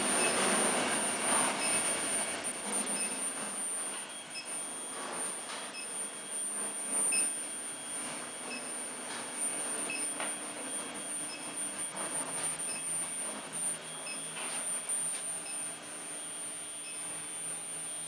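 Induction melting furnace power supply running: a steady high-pitched whine over the hiss of its cooling fans, with faint regular high pips about every two-thirds of a second.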